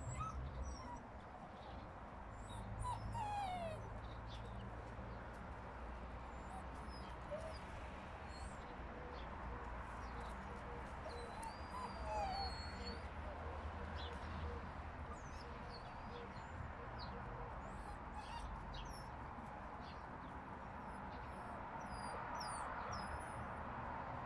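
German shepherd puppies whining and yipping briefly while tussling in play, a few short falling whines, the clearest about three seconds in and again about twelve seconds in.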